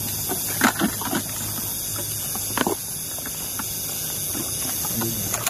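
Leaves and stems rustling and crackling in short bursts as plants are searched and handled, over a steady high hiss.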